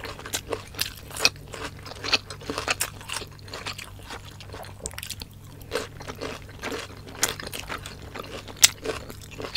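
Close-miked chewing and biting of spicy adobo chicken livers and gizzards and crisp cucumber slices: wet mouth sounds with irregular crunches, the sharpest near the end.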